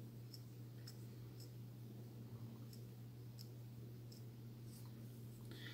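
Faint, light clicks from a steel crochet hook catching fine cotton thread as chain stitches are worked, about seven at uneven intervals of roughly half a second, over a steady low hum.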